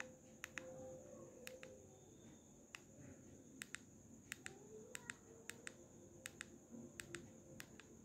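Faint clicking of a keypad phone's plastic buttons under a thumb: about ten presses spread irregularly, many heard as quick pairs of clicks, over a faint steady high-pitched whine.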